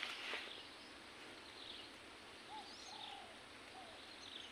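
Faint bird calls: a few short, arching notes between about one and a half and four seconds in, over quiet outdoor ambience, with a soft rustle at the very start.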